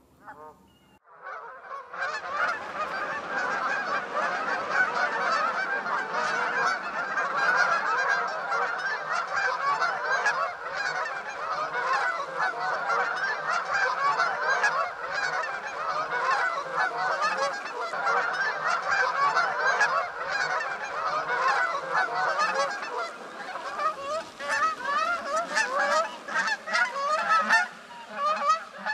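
A large flock of Canada geese honking, many calls overlapping into a dense chorus that starts abruptly about two seconds in. Near the end the chorus thins into more separate honks.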